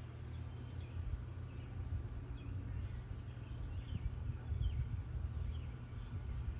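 Scattered short, faint bird chirps over a steady low rumble.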